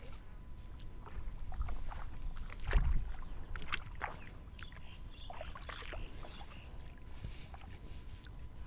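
Someone wading through shallow, muddy rice-paddy water among rice plants, with irregular splashing and sloshing steps; the loudest splash or bump comes about three seconds in.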